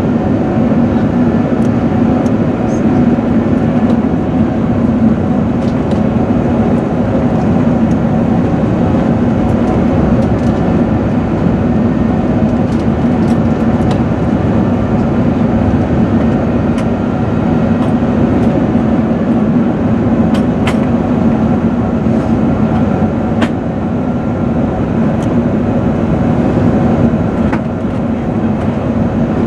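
Steady cabin noise of an Airbus A380 heard over the wing: the Rolls-Royce Trent 900 turbofans running and air rushing past the fuselage, with a constant low hum and a few faint ticks.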